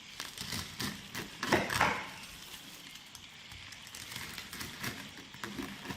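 A run of sharp knocks and crackles over a steady crackling hiss, with the two loudest hits about a second and a half in.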